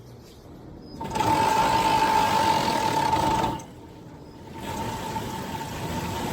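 Combine harvester machinery running with a steady high-pitched whine over a loud mechanical din. The sound jumps up abruptly about a second in, cuts out briefly about halfway through, and comes back somewhat quieter.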